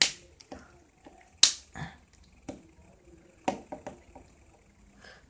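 Sharp plastic clicks and taps of a mobile phone's housing parts being handled and pressed together, a loud snap right at the start and another about a second and a half in, with smaller clicks between.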